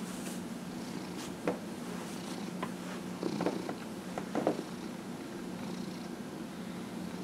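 Domestic orange tabby cat purring steadily while being massaged, with a few short rustles as hands shift over its fur, the loudest about a second and a half in and again past the middle.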